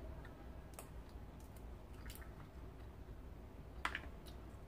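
Boiled peanut shells being cracked and peeled open by hand: a few faint, soft cracks, the loudest about four seconds in.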